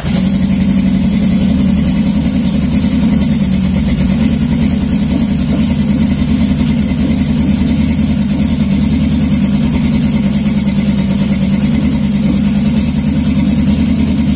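Turbocharged Honda CB750 SOHC air-cooled inline-four idling loud and steady, just after start-up.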